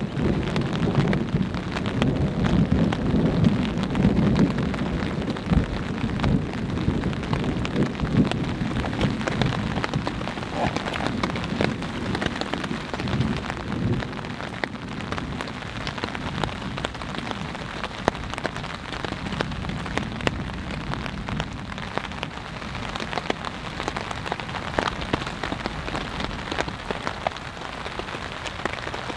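Steady rain falling on a tarp overhead, many separate drops ticking on the fabric. A low rumble sits under it through roughly the first half and then fades.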